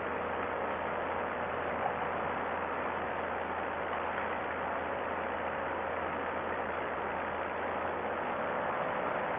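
Two-stroke paramotor engine running steadily at cruise in flight, a constant drone with rushing noise over it.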